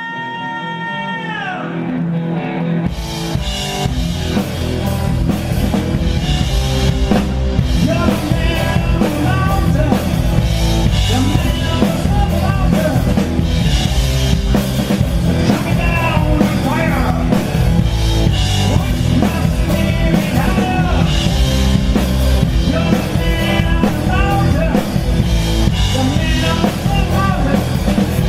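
Live rock band playing blues-rock, with a drum kit, electric guitar and bass. A held chord opens it, and the full band swells in over the first few seconds, then plays on at a steady, full level.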